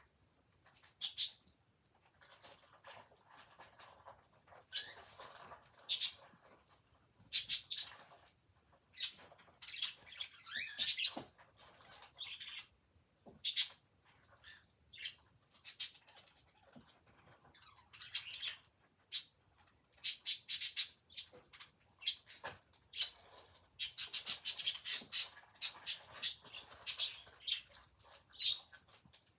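Budgerigar chattering: an irregular string of short, high chirps and squawks, busiest in a dense run of chatter near the end.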